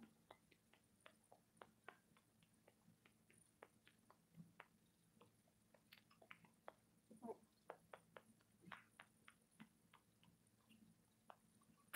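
Faint, irregular soft clicks and smacks from a macaque and a baby capuchin monkey nestled together, with a brief squeak about seven seconds in.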